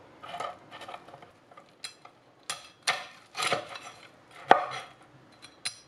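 Cleaver chopping through crispy roast pork belly on a bamboo cutting board: the crackling skin crunches and the blade knocks on the board, about half a dozen separate strokes, the loudest about four and a half seconds in.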